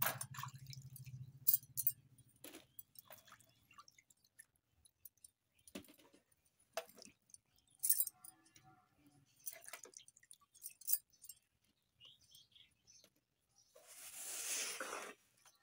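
Hands washing raw green mangoes in a basin of water, with small splashes as the wet fruit is lifted out and knocks as it drops into a plastic colander basket. A brief rushing noise, about a second long, comes near the end.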